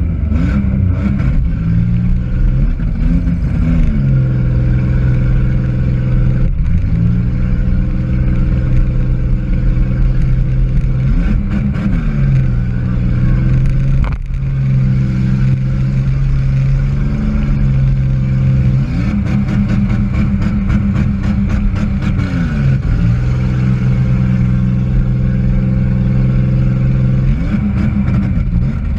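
Demolition derby car's engine, heard from inside the car, revving hard and held at high revs, dropping back and climbing again about half a dozen times, with a sharp knock about fourteen seconds in.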